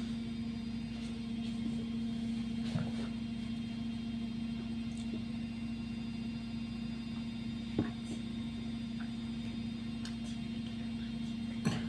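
Steady low electrical hum of room tone, with a few faint, short knocks about three seconds, eight seconds and near the end.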